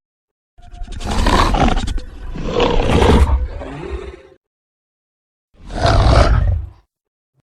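Ultimasaurus dinosaur roar sound effects: three separate roars. Two come back to back from about half a second in, the second trailing off; after a short silence a shorter roar comes near the end.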